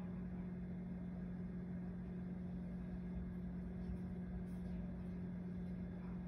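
Faint, steady low hum of a running appliance motor, with a light even hiss.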